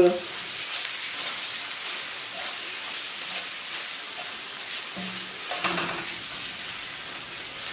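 Onions, spices and tomato paste sizzling in a hot oiled frying pan while a metal spoon stirs them, with a steady hiss and light scrapes and taps against the pan.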